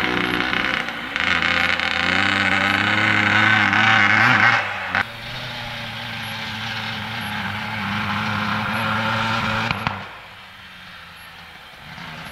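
1980 Suzuki RM125's single-cylinder two-stroke engine being ridden under throttle. Its pitch climbs and grows louder for the first few seconds, then drops suddenly about five seconds in. It holds steady after that and falls away to a quieter running note about ten seconds in.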